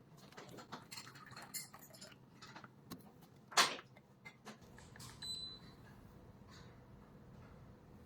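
A handheld portable espresso maker being handled: small plastic clicks and clinks, one louder sharp click, then a faint steady hum sets in about halfway, with a short high beep soon after.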